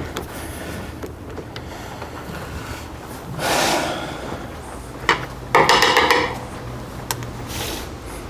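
A chainsaw chain and bar being handled and repositioned on a filing holder: a sliding rub about three seconds in, then a click and a short rattle of chain links, and a few light clicks near the end.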